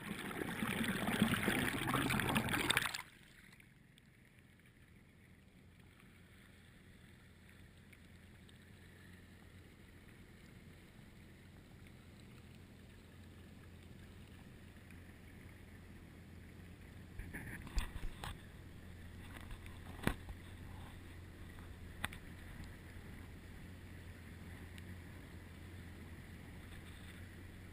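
Boat noise on open water: a loud rushing noise for about three seconds, then a faint steady low hum with a few sharp clicks near the end.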